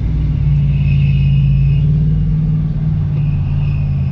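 Jeep's engine running at low revs, heard from inside the cab. Its pitch rises a little about half a second in and drops back near the end, as the Jeep creeps forward moving the car.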